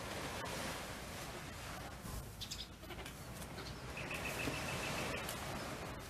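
Oriental pied hornbill call: a fast run of short, evenly pulsed notes about four seconds in, lasting just over a second, over a steady background hiss.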